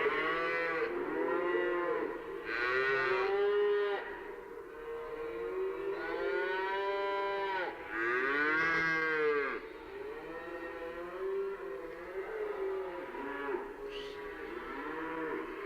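Oxen mooing: a string of long calls, several overlapping, loudest through the middle and softer near the end.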